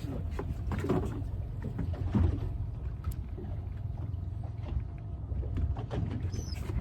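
Aboard a drifting fishing boat: water slapping and splashing against the hull over a steady low rumble, swelling louder about one and two seconds in.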